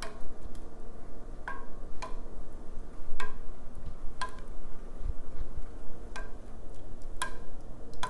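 Wooden spoon knocking against the sides of a stainless steel pot while stirring a vegetable porridge: about seven sharp taps at uneven spacing, each with a brief metallic ring.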